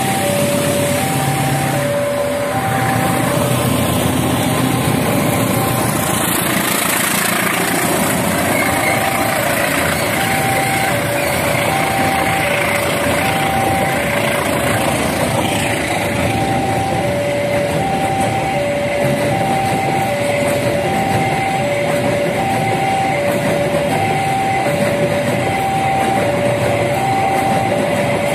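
Level-crossing warning alarm sounding two alternating tones in a steady repeating pattern. Under it runs the noise of a CC 201 diesel-electric locomotive and a long train of empty flat wagons rolling past.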